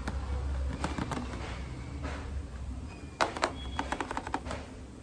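Light clicks and taps of skincare product packaging being handled, with a denser run of sharper clicks about three seconds in, over a steady low hum.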